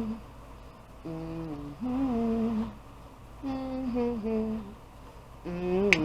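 A woman humming a simple tune without words, in short phrases of held, stepping notes with pauses between them.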